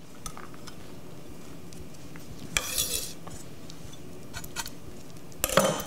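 A chef's knife scraping chopped green onion off its blade into a small bowl, with light clinks of metal on the bowl and two short scrapes, one about two and a half seconds in and one near the end.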